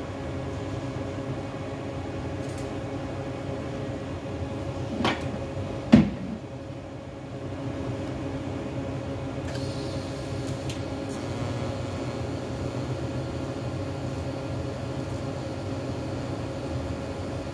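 A steady low hum, with two knocks about five and six seconds in. From about nine and a half seconds a faint high hiss comes from the TIG welder and carries on as the arc is struck on the steel oil pan near the end, with silicon bronze filler rod fed in.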